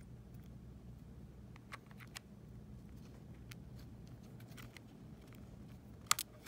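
Scattered light clicks and taps of small plastic and metal parts of an Apple TV being handled and fitted back together, with a sharper double click near the end, over a low steady hum.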